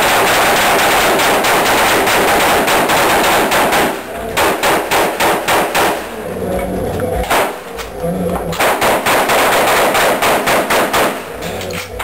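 Rapid gunfire from several guns firing at once, the shots running together for about four seconds, then slower separate shots, a short pause, and another dense stretch that tapers off near the end.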